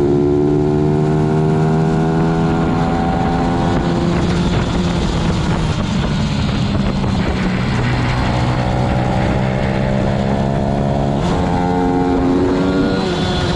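Onboard sound of a racing pit bike's single-cylinder four-stroke engine at high revs, with wind rushing over the microphone. The pitch climbs early on, turns rougher and lower through the middle, then jumps sharply about eleven seconds in and climbs again.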